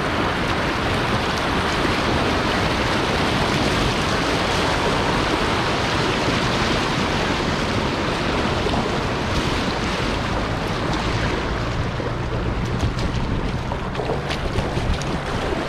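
Whitewater rushing around a kayak as it runs a small rapid, with wind buffeting the microphone. After about ten seconds the rush eases as the boat reaches calmer water, and short, sharp splashes of paddle strokes come through.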